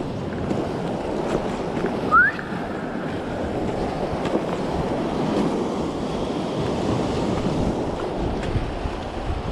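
Sea surf washing among shore rocks, with wind buffeting the microphone. A short rising squeak about two seconds in.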